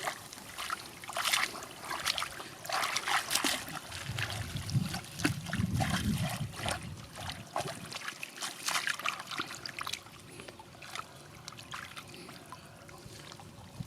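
Water splashing and trickling in many short irregular splashes, busiest over the first nine seconds, with a low rumble around the middle; it then settles to a quieter, steadier trickle.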